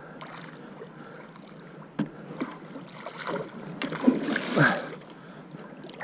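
Water splashing as a small hooked wels catfish thrashes at the surface while being played on a spinning rod. There is a sharp knock about two seconds in, and the splashing is loudest between four and five seconds.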